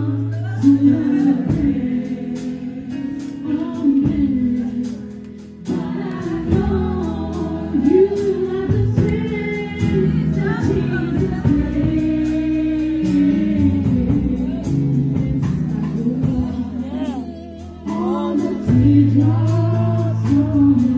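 A woman sings a slow gospel song into a handheld microphone over backing music with sustained bass notes and a steady ticking beat, holding and bending long notes.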